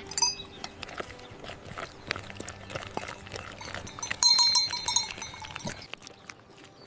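Livestock bleating: a short high call right at the start and a louder bleat of under a second about four seconds in, over scattered small clicks and knocks.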